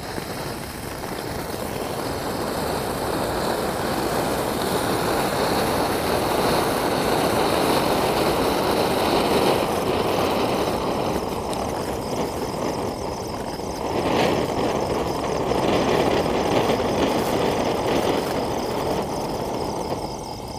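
Standard brand anar (flower-pot fountain firework) spraying sparks with a steady rushing hiss that builds over the first few seconds. It dips briefly, then surges again with a sharp crack about fourteen seconds in, and falls off at the very end.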